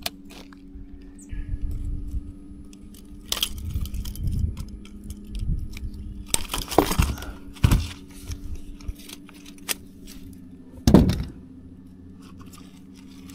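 Handling noise in a boat as a barramundi is landed and unhooked: scattered clinks, knocks and rustling, the loudest knock about eleven seconds in, over a steady low hum.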